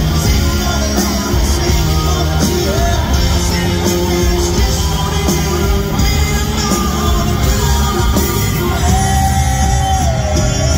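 Live rock band playing loud: singing over electric guitars, bass, keyboard and drums. A long note is held near the end, wavering and then dropping.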